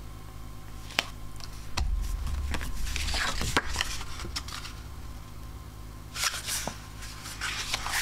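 Cardstock being handled on a craft mat: a few light clicks and taps, with paper rustling around three seconds in and again just after six seconds.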